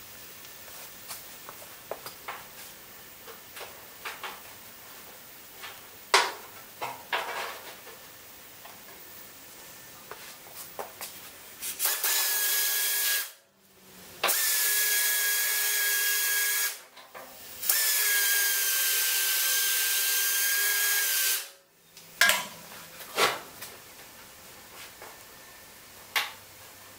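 Pneumatic drill run in three bursts of a few seconds each against a sheet-steel car wheel arch: a steady high whine over a loud hiss of air. Light knocks and clicks of metal parts being handled come before and after the bursts.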